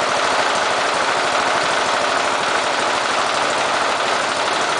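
12 HP Briggs and Stratton engine running at low idle on a lean mixture, steady overall but pausing or missing now and then: it does not run well lean.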